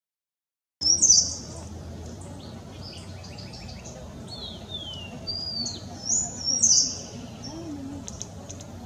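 Several birds chirping and calling, with high chirps and short whistles, some sliding down in pitch, over a faint steady background hum. The sound starts suddenly about a second in after silence.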